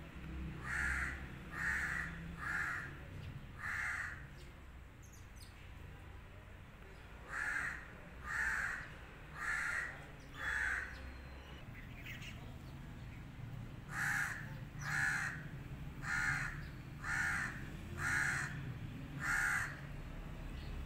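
A crow cawing in three bouts of short, harsh calls, about one a second: four caws, then four more, then six.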